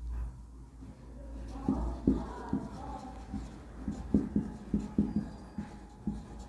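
Writing sounds: a quick run of short taps and strokes of a pen on a writing surface, starting a couple of seconds in, over a faint low hum.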